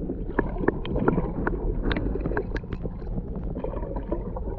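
A canoe being paddled, heard from underwater beside the hull: a steady muffled rush of water with the paddle blade stroking through, dotted with scattered sharp clicks and pops.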